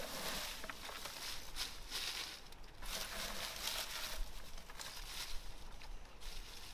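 Dry fallen leaves and twigs rustling and crackling in repeated bursts, one or two a second, as they are handled or trodden.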